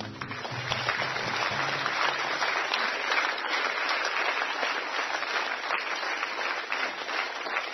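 Concert audience applauding at the end of a song, a dense steady clapping. A last low guitar note rings under the clapping for the first couple of seconds and dies away.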